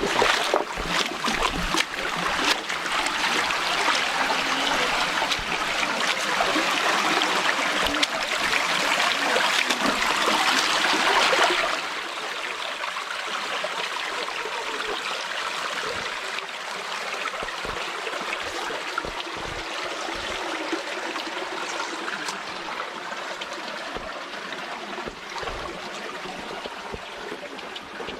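Shallow creek water running and trickling over rocks, louder for the first twelve seconds or so, then dropping suddenly to a softer, steady rush. Occasional dull low thumps.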